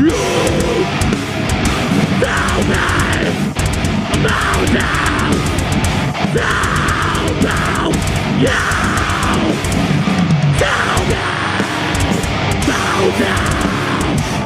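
Metal band playing live: heavy electric guitars over fast drumming, loud and dense throughout.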